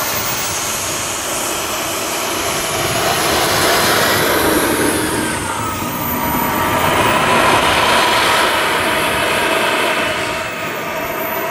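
Radio-controlled A-4 Skyhawk model jet's engine running as the model taxis close past: a steady rushing whine that drops in pitch as it goes by, about halfway through.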